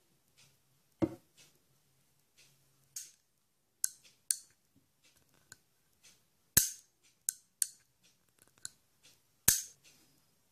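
Flobert revolver making lighter mechanical clicks, like cocking and the cylinder turning, between three sharp snaps: one about a second in, one about two-thirds of the way through, and one near the end.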